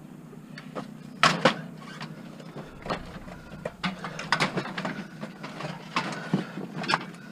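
Knocking and clattering of curbside junk being handled: two sharp knocks about a second in, then a run of lighter clacks, over a low steady hum.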